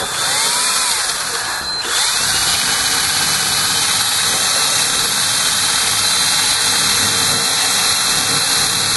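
A power drill spinning a brush against old pitted copper pipe, scouring the surface to prepare it for soldering. It runs steadily, with a brief dip about two seconds in.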